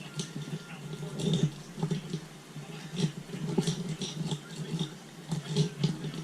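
Irregular light metallic clicks and rattles of small engine parts being handled as the cam chain is worked out of a Honda CRF450 engine during teardown.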